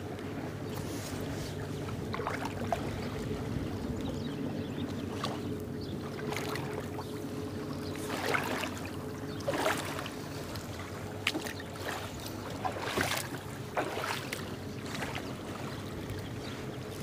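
River water lapping and slapping against the hull of a small boat, with a handful of sharper splashes in the second half, over a steady low hum.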